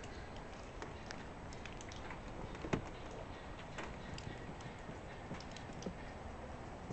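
Peafowl pecking at nuts and stepping on gravel: irregular light clicks and taps, with one louder knock about three seconds in.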